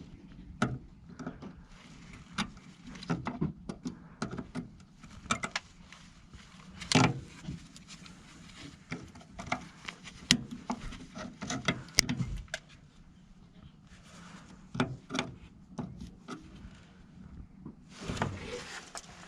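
Scattered clicks and knocks at irregular intervals, with no steady motor or hammering rhythm.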